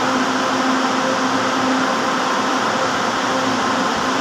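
Steady hum of an LRT Line 2 electric train standing at the platform, its air-conditioning and auxiliary equipment running, with a low, even tone over a rushing hiss.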